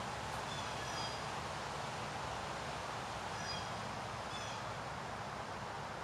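Steady rustling hiss of wind through forest leaves, with a few short, high bird chirps: one pair about half a second in and two more a little past the middle.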